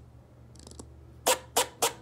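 Eastern gray squirrel barking: three loud, sharp barks in quick succession, about three a second, starting just past halfway, after a faint high chirp.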